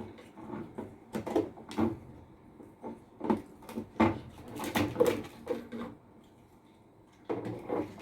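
Irregular clicks, knocks and rattles of computer parts being handled and fitted, with a few sharper clicks among them.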